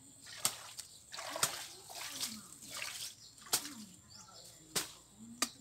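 Hands splashing in shallow pond water: about five sharp splashes a little over a second apart.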